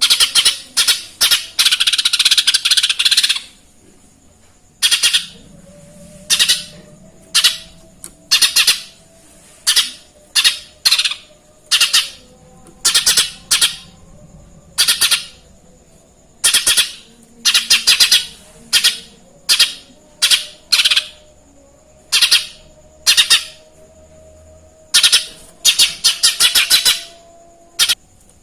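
Cucak ijo mini (lesser green leafbird) singing a string of short, sharp chirps in its mimicked tree-sparrow 'material', with a fast chattering run about a second in and another near the end.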